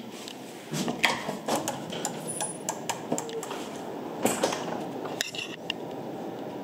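A run of irregular light clicks and clattering knocks over a steady low background rumble, stopping about a second before the end.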